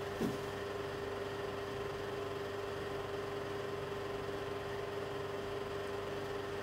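Steady electrical hum with a constant mid-pitched tone over a faint hiss: room tone, with no distinct handling or wiping sounds.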